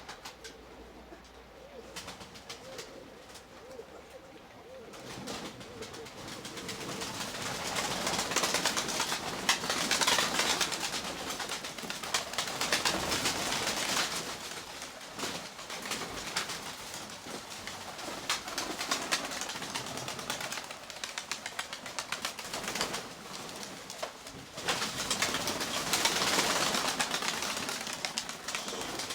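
Domestic pigeons cooing, with steady rain pattering and dripping on a roof overhead. The rain noise swells about five seconds in and is loudest near the middle and near the end.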